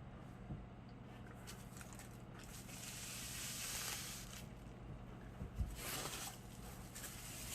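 Faint crinkling and rustling of a plastic bag as 3D-printed model pieces are handled, swelling a few seconds in and again near the end, with a few light knocks of the parts, over a low steady hum.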